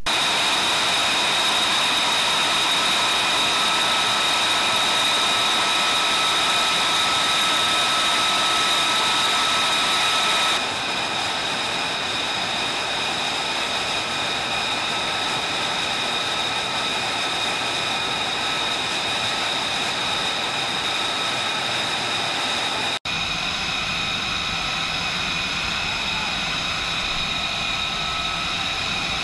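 F-35B's Pratt & Whitney F135 turbofan idling on the ground: a steady jet whine, with a high even tone over a rushing hiss.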